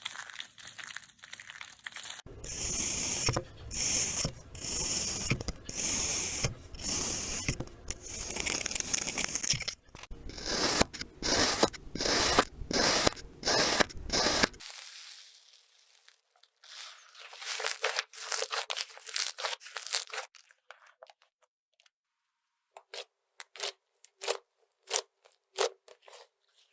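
Repeated crisp crunching and cutting strokes through a soft, crumbly material, a few each second, coming in several separate runs with a short near-silent gap about two-thirds of the way through.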